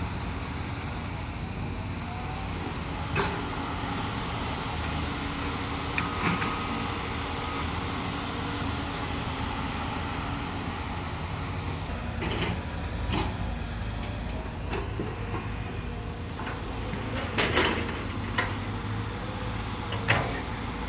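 Hyundai 330-series crawler excavator's diesel engine running steadily under load as it digs, with several sharp clanks and knocks of the bucket against rocky soil, more of them in the second half.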